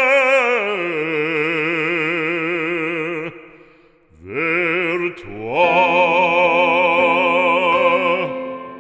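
Operatic singing of a French sacred song: a voice holds a long note with wide vibrato that slides down to a lower pitch. After a short break, a second long note rises and is held with vibrato.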